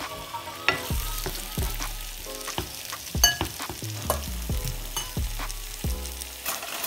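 Wooden spoon stirring mushrooms and eggs in a sizzling frying pan, with repeated knocks and scrapes of the spoon against the pan.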